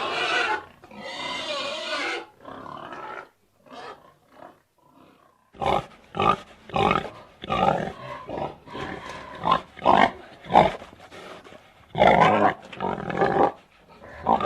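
A pig vocalising. A loud call ends just after the start and quieter sounds follow. From about five seconds in comes a rapid series of short, loud squeals and grunts, with a longer squeal near the end.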